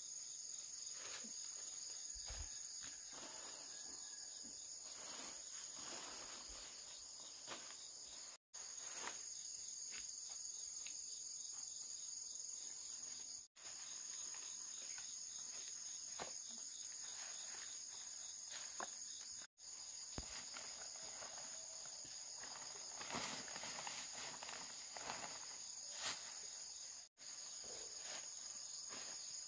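A steady, high-pitched chorus of insects, with faint scattered taps and rustles and a few louder knocks near the end. The whole sound drops out for an instant four times.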